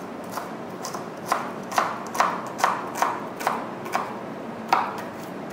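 Kitchen knife chopping an onion into small squares on a plastic cutting board: a run of sharp taps, about two a second, unevenly spaced.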